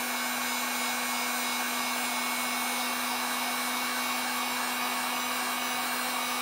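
Electric heat gun running steadily, a continuous rush of blown air over a constant low hum, as it heats an acrylic rod to soften it for bending.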